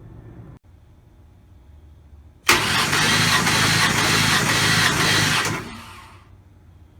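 Supercharged Ford 4.0L SOHC V6 engine in a second-generation Explorer: a faint low running sound, then a sudden loud burst of engine noise about two and a half seconds in that holds for about three seconds before dropping away.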